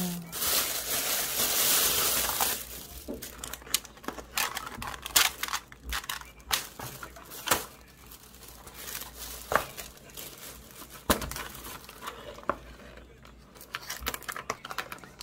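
Thin plastic delivery bag rustling and crinkling as it is pulled off the food, followed by scattered sharp taps and clicks of a film-sealed plastic food tray and a paper box being handled and set down on the table.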